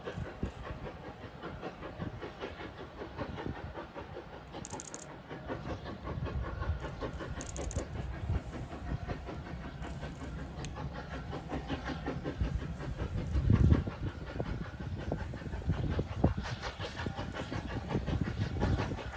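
SECR O1 class 0-6-0 steam locomotive No. 65 working a short goods train on the approach: a quick run of exhaust beats with steam hiss and the rattle of wagons on the rails, growing louder as it nears. A loud low thump about thirteen and a half seconds in.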